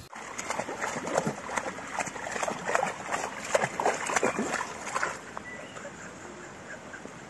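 Dog digging and splashing in a muddy puddle: a rapid, irregular run of wet slaps and squelches that dies down after about five seconds.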